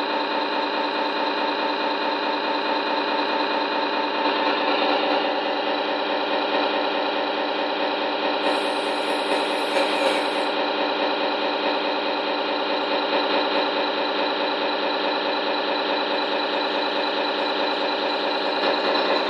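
Radio-controlled Tamiya Scania T wrecker model giving off a steady mechanical drone of many even tones while its crane boom moves. The tone shifts slightly about four seconds in, and there is a brief high hiss a little after the middle.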